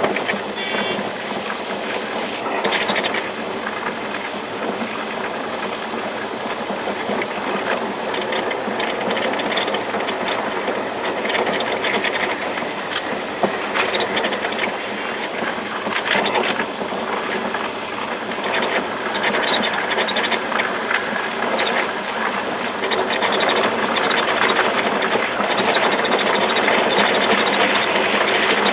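Passenger train running along the track: a steady rumble and clatter of wheels on rails, with scattered short clicks.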